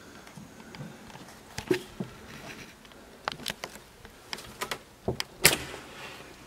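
Footsteps crunching over broken wood, plaster and litter on a wrecked floor: a scatter of sharp cracks and knocks, with the loudest snap about five and a half seconds in.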